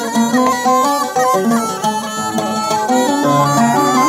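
Instrumental dan passage: a mizmar reed pipe plays a melody in held notes that step up and down, with oud accompaniment.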